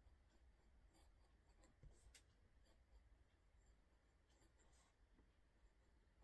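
Very faint scratching of a TWSBI Eco fountain pen's 1.1 mm steel stub nib writing on Clairefontaine 90gsm paper, with a few light ticks as strokes start and lift, the clearest about two seconds in.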